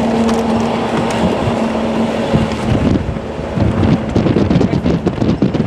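A moving vehicle's engine and road noise: a steady hum for the first couple of seconds, then uneven knocking and rattling from about three seconds in, as if over rough ground.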